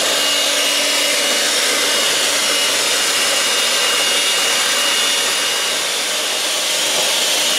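Handheld electric mixer running steadily at speed, its beaters whipping eggs in a stainless steel bowl: a loud, even motor whine with a thin high tone, slowing down at the very end.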